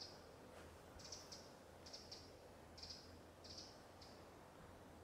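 Faint, short high-pitched chirps in small groups, recurring about once a second, over a low steady hum in a near-silent field.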